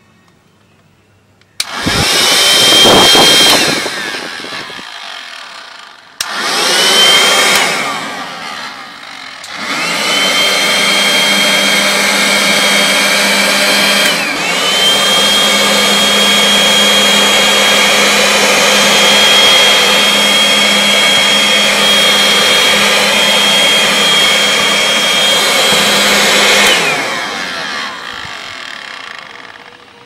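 12 V DC electric air pump motor, rigged as a PVC-pipe vacuum cleaner, switched on twice briefly, each time spinning up to a high whine and winding down. It is then run steadily for about seventeen seconds, with one short dip in pitch partway, before it is switched off and runs down near the end.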